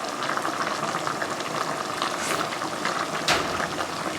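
A pot of chicken stewing in thick coconut milk bubbling and crackling steadily at the boil, with a single sharp click a little after three seconds.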